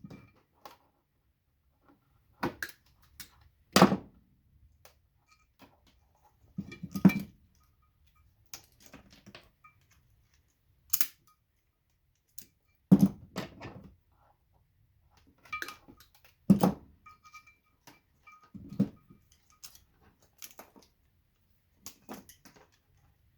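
Scattered sharp clicks, snaps and knocks, one every second or few, as small bulbs are worked and broken out of the plastic sockets of a Christmas light string.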